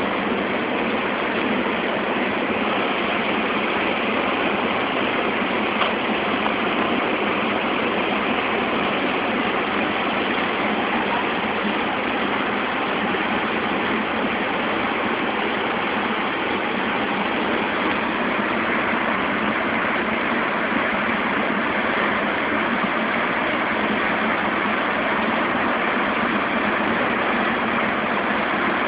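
Steady rush of whitewater from a fast tidal rapid and its standing wave, an even noise with no breaks.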